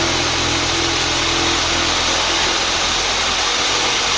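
Power saw running steadily as it cuts through plaster and lath along a stud line, a loud even rasp with a high motor whine over it.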